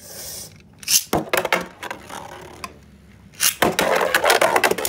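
Two Beyblade spinning tops launched into a plastic stadium. A short rasp as they go in, a few sharp clicks as they land, then from about three and a half seconds in a dense clatter of clicking and scraping as they spin and knock against each other and the stadium.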